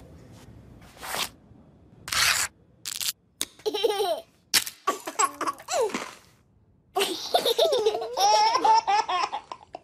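Babies and toddlers laughing and giggling in short bursts from about three seconds in, then in one longer, louder stretch of laughter near the end.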